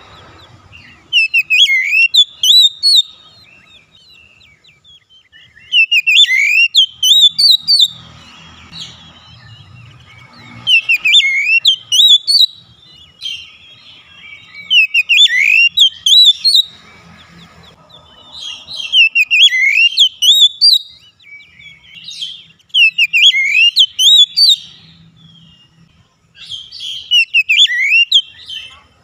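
Oriental magpie-robin (kacer) singing: seven loud phrases of fast, rising and falling whistled notes, each about two seconds long, repeated roughly every four seconds with short pauses between.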